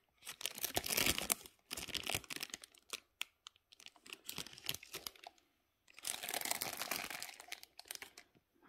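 Clear plastic film over a jar crinkling as it is handled. The rustling comes in repeated bouts, with a longer bout near the end.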